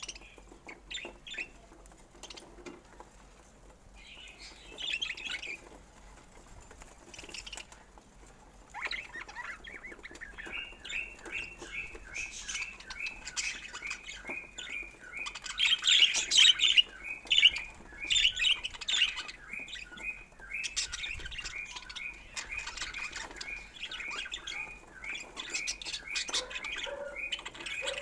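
Budgerigars chirping and chattering. Scattered chirps at first, then from about ten seconds a quick run of short repeated chirps, with a few louder squawks around the middle.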